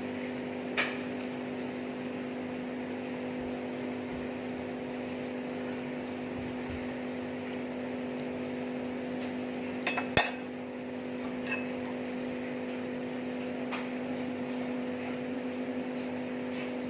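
Tableware clinking a handful of times during a meal, sharpest in a quick cluster about ten seconds in, over a steady electrical hum.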